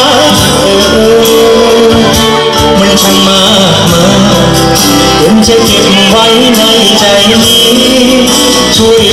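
A male singer sings live into a microphone over loud, amplified band music.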